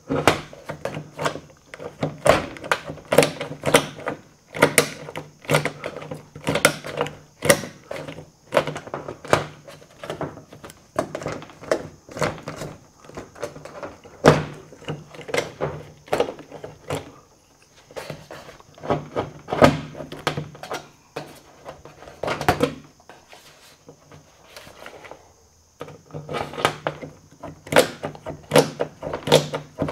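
Corrugated metal wall panels being handled and fitted into place: many irregular knocks, taps and rattles of sheet metal, over a steady hum that stops twice for a moment.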